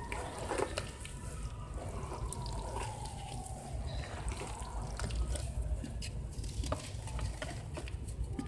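Hands squishing and crumbling wet sand and dirt clumps in a bucket of water: wet stirring and sloshing with many small clicks of breaking grit.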